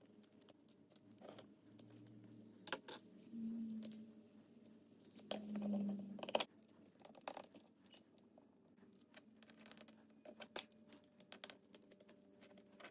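Faint scattered clicks and light taps of a small hex driver, tiny screws and hard plastic chassis parts being handled while screws are backed out of a small RC rock crawler's chassis, with a couple of louder rubbing sounds around the middle.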